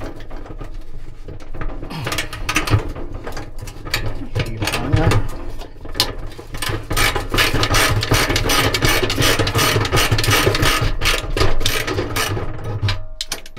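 Socket ratchet turning the bolt at the centre of a dryer drum's rear panel, its pawl clicking in quick runs of rapid ticks, with a short break near the end.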